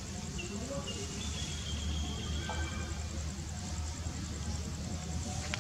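Outdoor ambience: a steady low hum with a few faint, short high chirps in the first half.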